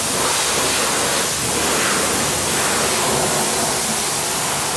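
Steady hiss of high-pressure water spraying from a self-service car wash lance.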